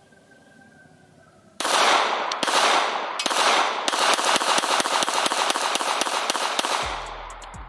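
Pistol fired in a rapid string of shots, several a second, starting about one and a half seconds in and lasting about five seconds before the echoes die away.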